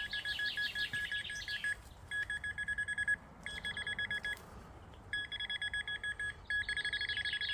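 Metal detector pinpointer sounding its target alert: rapid high-pitched beeping in five bursts with short pauses between, as the probe is moved on and off a buried metal target in the hole.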